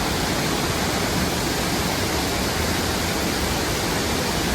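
Steady, even rush of the Burney Falls waterfall, water falling and churning into its pool.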